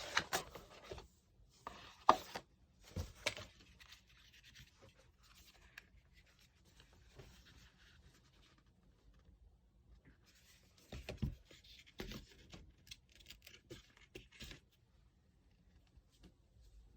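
Packaging being handled and opened by hand: bursts of rustling, scratching and tearing, with a few light clicks and taps, in two spells separated by a quieter stretch in the middle.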